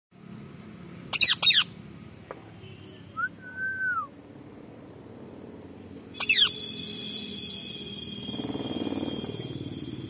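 Rose-ringed parakeet giving shrill, falling screeches: a quick pair about a second in and another pair a little past the middle, with a short whistled note between them.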